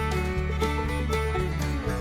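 Background music with string instruments and a steady beat.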